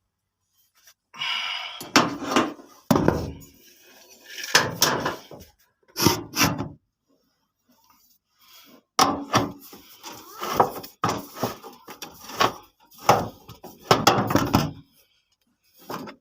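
Hand tools and washing-machine parts being worked on: irregular clattering, knocking and scraping in short bursts as bolts and nuts are fitted and tightened.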